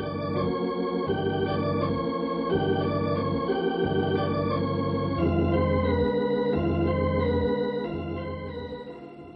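Organ music bridge between radio-drama scenes: held chords over a bass line that steps to a new note about every second, fading out near the end.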